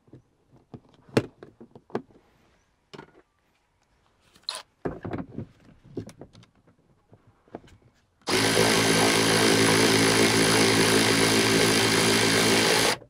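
Cordless power tool with a socket running a seat-belt anchor bolt out: a steady motor whirr for about four and a half seconds, starting about eight seconds in and stopping suddenly. Before it, scattered clicks and knocks as the tool is handled and fitted onto the bolt.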